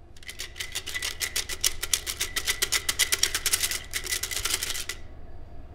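Wooden popsicle sticks rattling in a glass jar as it is shaken to mix them. It is a fast, uneven run of clicks, about eight a second, that stops about five seconds in.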